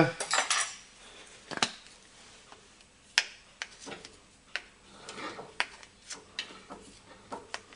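Scattered light clicks and taps from handling a bottle of marking ink against a PVC workpiece and turning a lathe chuck by hand, with the lathe motor off.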